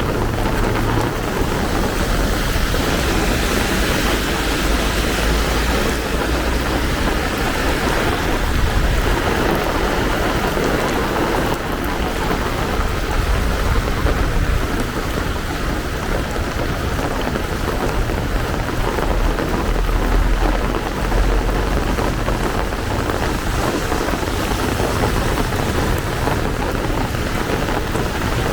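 Heavy rain pouring steadily, a dense even hiss of falling water, with a low rumble swelling at times.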